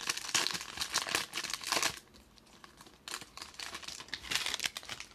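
Foil wrapper of a Panini Prizm basketball card pack crinkling and tearing as it is ripped open, in two bursts of crackling with a short lull about two seconds in.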